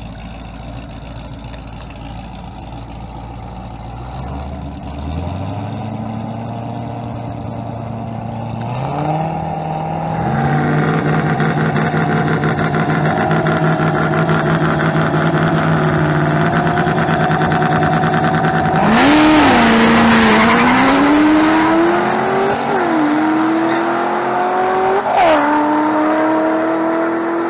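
A turbocharged LS-swapped 1981 Ford Fairmont and a Corvette ZR1 idling side by side, then revving up and holding revs at the start line. About two-thirds of the way in they launch hard with a burst of tyre noise and accelerate away, engine pitch climbing and dropping back at each gear change.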